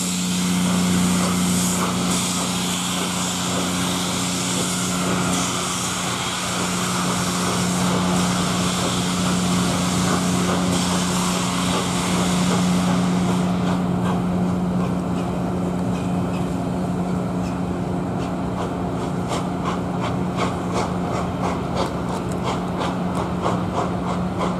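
LNER A4 steam locomotive pulling away with its train: a loud, steady hiss of escaping steam, which thins about halfway through and gives way to a rhythm of evenly spaced beats as the train moves off.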